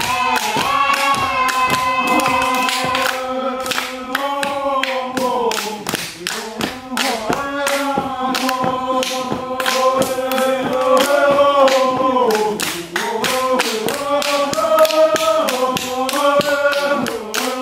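Traditional Vanuatu custom dance song: a mixed group of villagers singing together in long held phrases that step up and down in pitch, over a steady percussive beat from the dancers.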